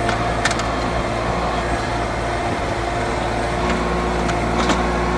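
An engine running at a steady speed, a constant hum with a few faint clicks over it.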